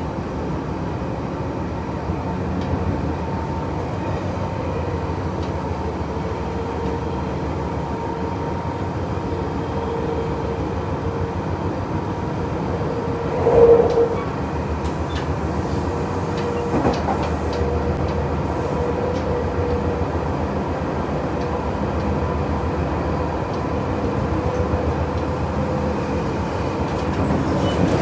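Running noise of a Tokyo Metro 7000 series motor car with Mitsubishi two-level IGBT-VVVF drive, heard inside the car at speed: a steady rumble of wheels on rail with a faint steady whine. A single loud thump comes about halfway through, and a few lighter clicks follow.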